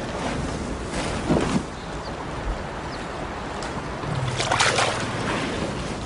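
Water sloshing and splashing as elephants wade in a river, with a short, louder, low rough sound about four seconds in.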